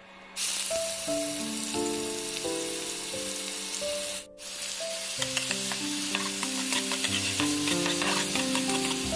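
Hot oil sizzling in a non-stick wok, first with seeds frying in it, then with onion paste added and stirred with a metal spatula, which scrapes and clicks against the pan from about halfway on. Soft background music plays underneath. The sizzle starts about half a second in and drops out briefly just before the halfway point.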